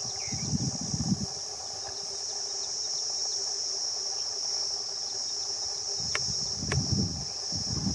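Steady high-pitched insect chirring. Low rumbling gusts come about a second in and again near the end, with two sharp clicks shortly before the second gust.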